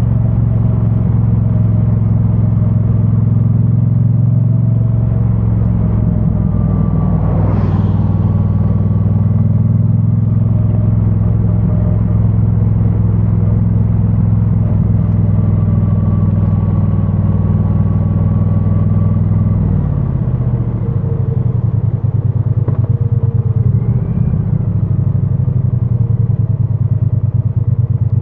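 A 2022 Triumph Bonneville T100's 900 cc parallel-twin engine on its stock exhaust, heard from a backpack-mounted mic, running at steady cruising revs. A brief rushing noise comes about seven seconds in. About two-thirds of the way through the revs drop as the bike slows, and the engine then runs at low revs with an uneven beat.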